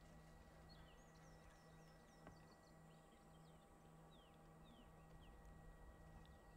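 Near silence: quiet bush ambience with many faint, short, high chirps falling in pitch from small birds, over a faint steady low hum.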